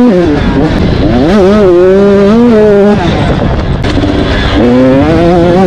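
KTM 85 two-stroke motocross bike engine revving hard, its pitch winding up and dropping with throttle and gear changes. It falls off for about a second and a half past the middle, then winds up again near the end.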